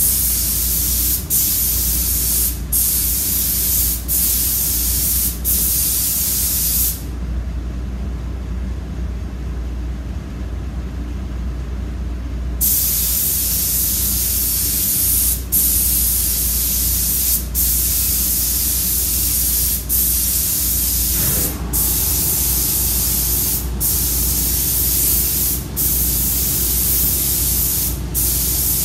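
Air-fed paint spray gun spraying a truck fender: a loud, steady hiss of atomizing air in passes, broken by short pauses about every second and a half as the trigger is let off, and one longer stop of about five seconds about a quarter of the way in. A low hum runs underneath throughout.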